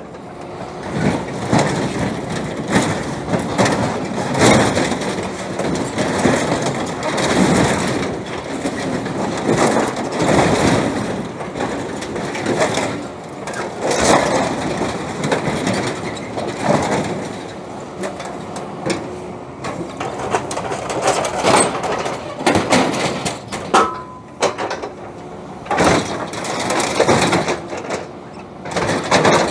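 Excavator wrenching and crushing the steel of an old harvester: irregular metal cracks, bangs and scraping over the excavator's running diesel engine.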